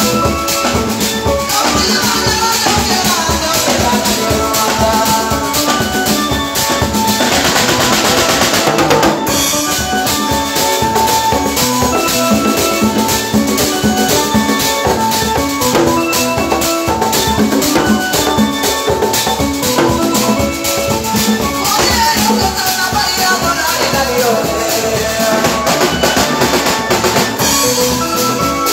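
Live band music: djembe, drum kit and a Yamaha electronic keyboard playing together, a busy, steady drum rhythm under a keyboard melody. A falling pitch glide sweeps down twice, about two seconds in and again about twenty-two seconds in.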